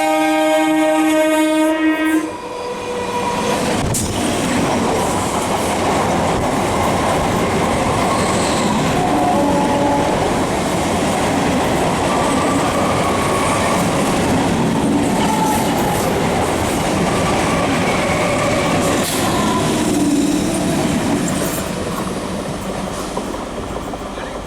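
Indian Railways ICF EMU local train sounding its horn, which cuts off about two seconds in, then the EMU running past close by with a loud rumble and wheels clattering over the rail joints, fading near the end.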